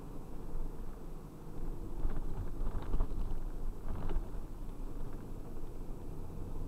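Driving noise of a van on a narrow country road, picked up by a dash cam in the cab: a steady low rumble of engine and tyres, with a few louder knocks and rattles between about two and four seconds in.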